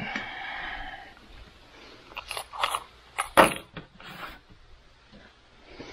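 Bolt, nut and washer being handled and fitted into a solar panel frame: a scraping sound in the first second, scattered small clicks and clinks, and one louder knock about three and a half seconds in.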